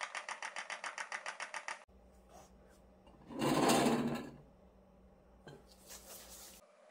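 Stick blender running in raw soap batter with an even, fast pulsing, bringing the batter to medium trace; it cuts off about two seconds in. About a second and a half later come a loud scraping rustle of about a second, as glass measuring cups are slid into place on a table, and a light click.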